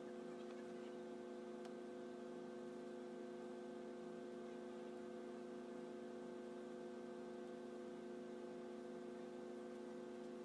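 Steady electrical mains hum, a constant buzz at one unchanging pitch, with a faint click or two.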